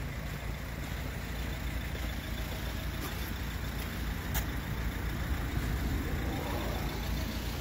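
Renault Kangoo van's engine idling, a steady low rumble.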